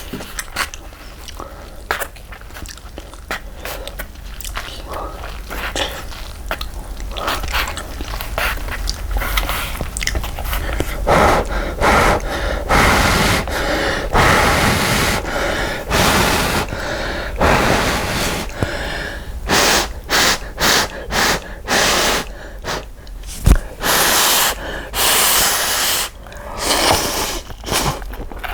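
Close-miked eating of instant cup ramen: soft chewing clicks at first, then from about eleven seconds in a run of loud slurps of noodles and broth, each lasting under a second.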